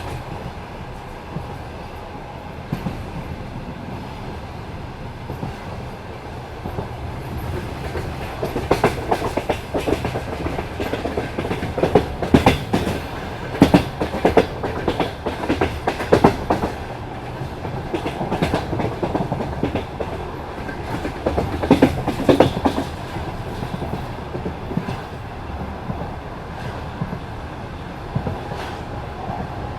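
Passenger train's wheels running over jointed track: a steady rumble with clusters of clacks as the wheelsets cross each rail joint. The clacks come thickest and loudest between about 8 and 23 seconds in.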